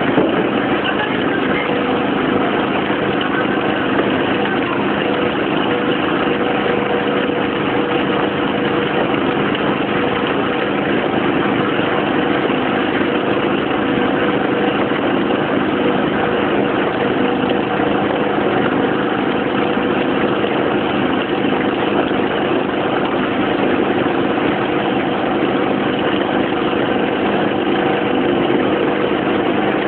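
An engine running steadily at an even speed, with a constant hum and no changes in pitch or level.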